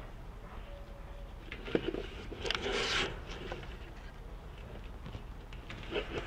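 Adhesive tubeless rim tape being pulled off its roll and pressed into a bicycle rim by hand: faint rubbing and peeling, with a louder rustle about two and a half to three seconds in.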